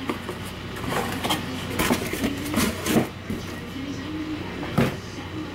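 Cardboard box and brown paper candle packaging being handled: rustling and crinkling, with several sharp knocks as things are moved and set down, the clearest about two, three and five seconds in.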